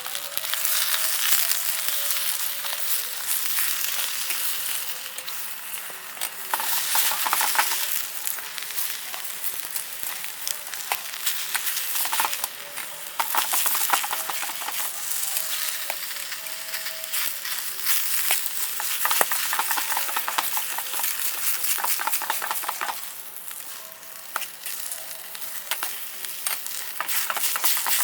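Food sizzling as it fries in a small camp cooker pan, with a utensil stirring and scraping against the pan in many irregular clicks. The sizzle swells and eases as it is stirred.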